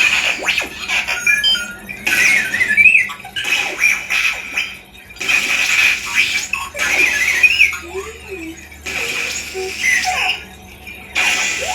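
Sabertrio Reaver CFX lightsaber sound board playing a soundfont of electronic chirps and warbling, R2-D2-style whistles. The sounds come in short takes that start and stop abruptly, each full of quick rising and falling pitch glides.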